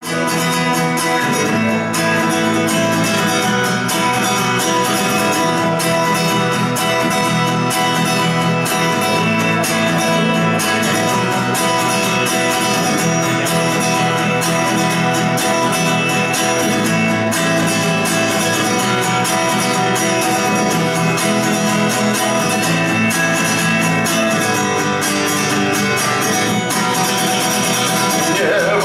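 Acoustic guitar strummed steadily, played live through a microphone as the song's instrumental introduction, with no voice yet.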